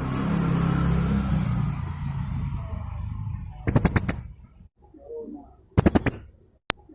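Blue-crowned hanging parrot (serindit) giving two bursts of rapid, shrill, high-pitched 'tembakan' notes, about five staccato notes in each, about halfway in and again near the end. Faint lower notes sound between the bursts, and a steady low rumbling noise fills the first half.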